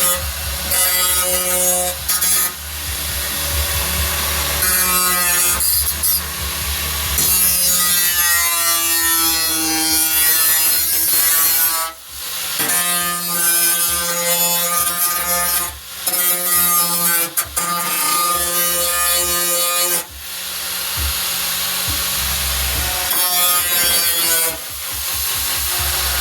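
Handheld power tool running in long stretches, its whine sagging and rising in pitch as it is pressed against the work, with a gritty hiss above. It stops and restarts briefly several times.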